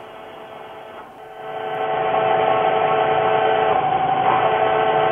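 A large drill or reamer cutting a cross hole on a Bridgeport milling machine, squealing in the cut: a loud, steady squeal of several held tones that builds up about a second in and holds.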